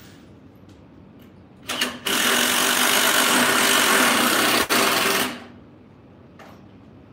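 Hand-held power drill run in a short blip, then held on for about three seconds with a split-second break near the end.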